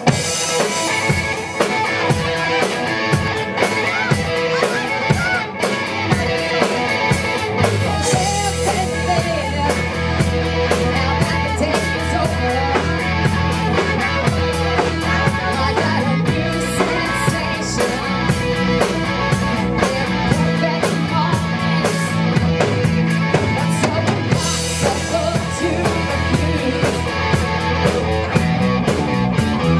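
Live rock band playing: drum kit, electric guitar and bass guitar. A heavy low bass line comes in about eight seconds in and carries on beneath the drums and guitar.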